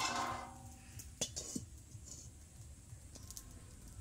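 Metal cooking pots clank together at the start, the metal ringing on briefly, followed by two lighter knocks a second or so later.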